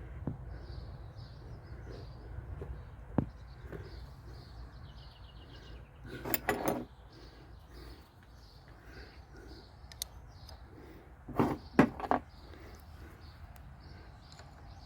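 Small birds chirping faintly in the background, with a few sharp clicks and clatters of hand work on a lawnmower, the loudest about six and a half and eleven and a half seconds in.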